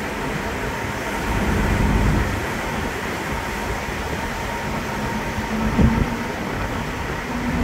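Wind buffeting the microphone in gusts over the steady rumble of the docking ferry MV Saaremaa 1's machinery, with a faint steady whine. A single dull knock comes a little before the end.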